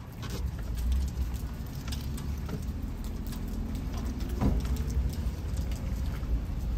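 A vehicle's low running rumble in the rain, with scattered raindrop ticks and a sharp click about four and a half seconds in.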